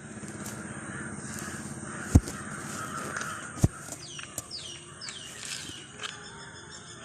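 Birds calling over outdoor background noise, with two sharp knocks about two and three and a half seconds in.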